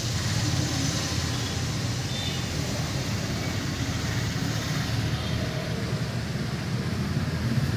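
Steady low rumble of background road traffic, without clear single events.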